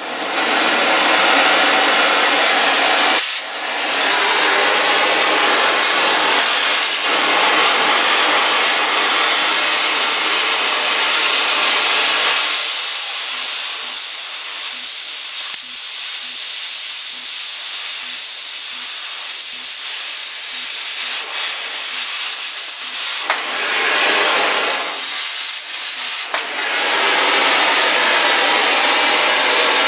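Harris 43-2 oxy-acetylene cutting torch flame hissing loudly. About twelve seconds in the sound turns thinner and higher as the torch cuts steel, throwing sparks. It dips briefly a few times before cutting off near the end.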